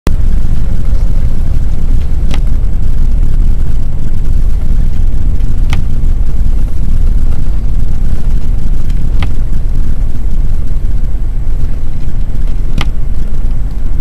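Steady low rumble of a truck driving on a snow-covered highway, heard from inside the cab. A sharp click comes about every three and a half seconds, four times in all.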